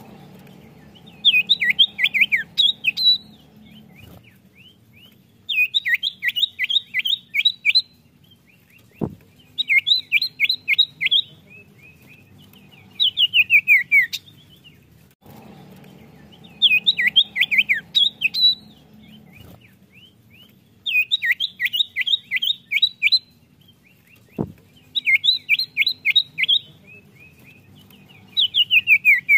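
Common iora singing: phrases of quick, high, downward-sweeping notes, each about two seconds long, repeated every few seconds. A single sharp click comes twice.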